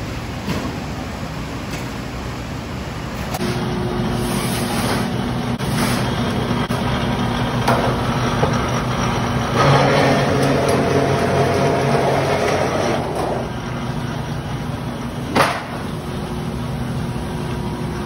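Flagler Pittsburgh lock-forming machine running with a steady motor hum, growing louder for about four seconds midway as sheet metal feeds through its forming rolls to roll a Pittsburgh seam along the edge. A single sharp clank comes a couple of seconds after the rolling stops.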